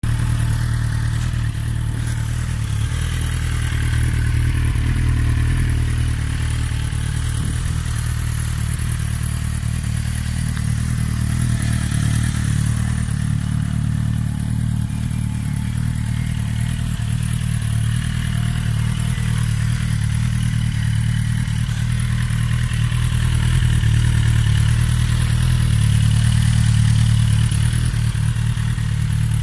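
2008 Suzuki GSX-R1000's inline-four engine idling steadily through a Yoshimura GP slip-on exhaust.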